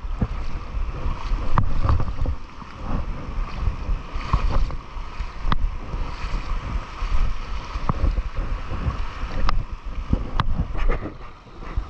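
Wind buffeting the microphone with a heavy low rumble, over a hiss of shallow water, broken by a handful of sharp clicks a second or two apart.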